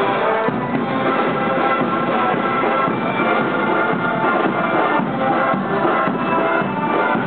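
Marching band music playing steadily.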